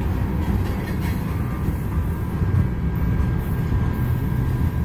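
Freight cars rolling past on the track: a steady low rumble of steel wheels on rail, with faint steady high tones above it.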